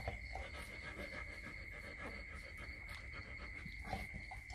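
A steady high-pitched whine holds over a low hum, with only a few faint soft handling sounds. Nothing louder happens.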